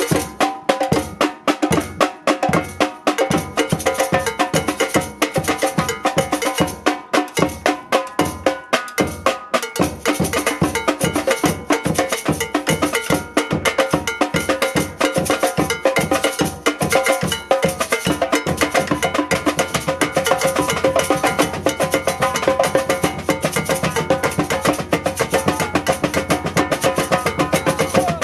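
Samba band percussion playing a fast, steady groove: drums with bells ringing over them. The deep bass drums come up stronger about two-thirds of the way through.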